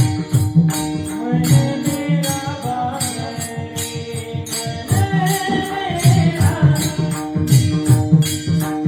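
Varkari devotional bhajan music: steady held melodic notes over a fast, even rhythm of bright metallic cymbal strokes and low drum beats, with a voice singing a gliding, ornamented line about five seconds in.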